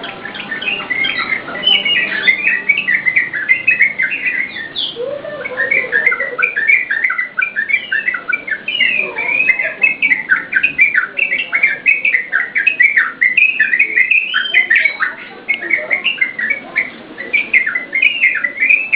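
Yellow-vented bulbul (trucukan) singing, a continuous fast run of short rising and falling notes.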